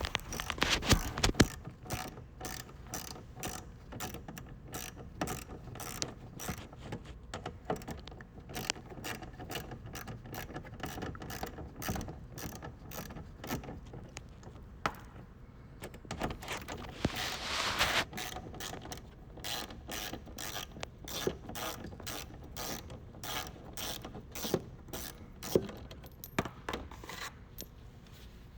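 Hand ratchet wrench clicking steadily, about two clicks a second, as the mud-flap bolts under a Corvette C8's rear bumper are backed out, with a brief scrape of the tool and parts about two-thirds of the way through.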